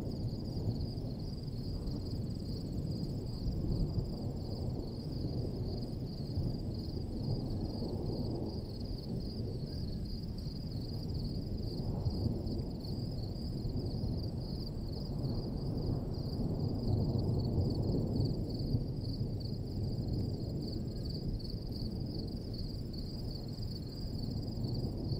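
Wind gusting across the field, a low rushing rumble that swells and eases every few seconds, with a steady high chorus of insects trilling throughout.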